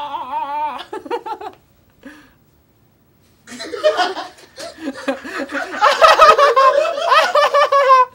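A person laughing in quick bursts, a pause, then laughing harder and louder, ending in a long, high drawn-out laugh that cuts off suddenly.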